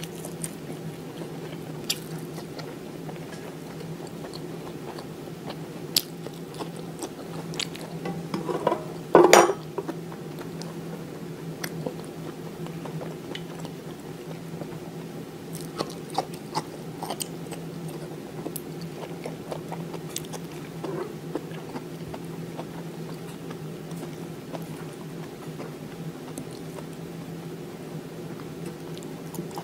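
A person chewing and eating food at close range, with scattered small clicks and crunches and one louder burst about nine seconds in, over a steady low hum.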